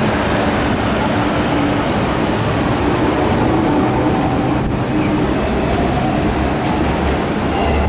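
Steady running noise of a four-wheel double-deck electric tram, heard from its top deck: a low rumble of wheels and running gear on the rails, mixed with the road traffic and double-deck buses around it.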